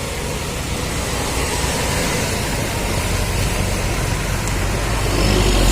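Road traffic noise with a heavy vehicle's engine running steadily; the low engine rumble grows louder over the last couple of seconds as the vehicle comes closer.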